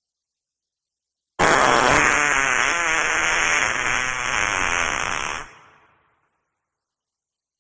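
A long wet fart sound effect, starting suddenly about a second and a half in and lasting about four seconds, wavering in pitch, then breaking off and dying away quickly.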